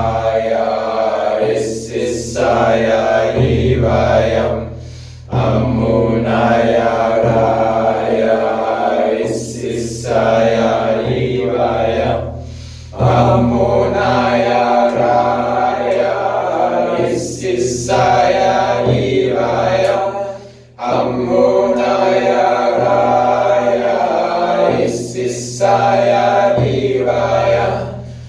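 Mantra chanting in long held sung tones. The same phrase repeats about every eight seconds, each time broken by a short pause.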